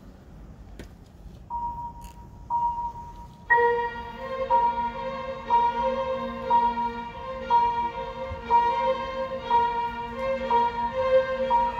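A school string orchestra playing. A single high note sounds twice, about a second apart, then the full strings come in with chords that pulse about once a second.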